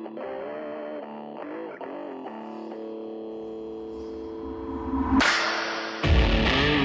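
Rock soundtrack on distorted electric guitar: held and bent notes, then a whoosh about five seconds in, and the full band comes in loud about a second before the end.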